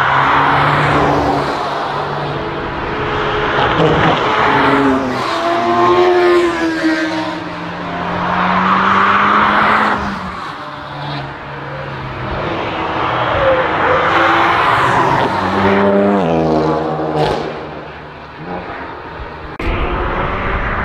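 Cars passing one after another at speed, each engine note climbing and stepping as it accelerates and changes gear. Tyre noise rises and falls with each pass.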